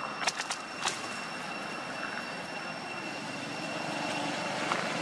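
Steady low rumble of distant road traffic, growing slightly louder in the second half, with a few light footsteps on stone paving in the first second.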